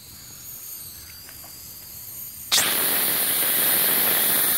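Live steam blowing out of a fire-tube boiler's half-inch engine-outlet ball valve, opened by hand about two and a half seconds in: a sudden, loud, steady hiss.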